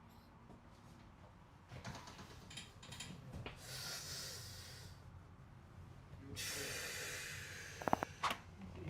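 A person breathing out twice in long hissing breaths, then a quick cluster of sharp cracks near the end: joints popping under a chiropractic spinal adjustment.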